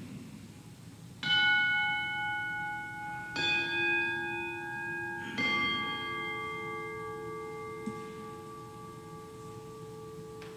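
Altar bell struck three times, about two seconds apart, each stroke a clear ringing chime that rings on and slowly fades. It marks the elevation of the chalice just after the consecration.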